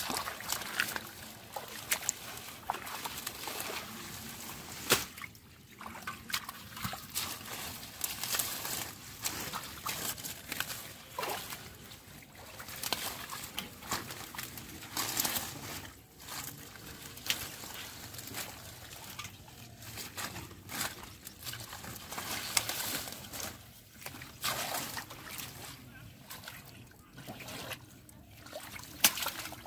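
Shallow muddy water sloshing and trickling as hands grope through mud and tangled water hyacinth. There are irregular splashes and wet crackles throughout.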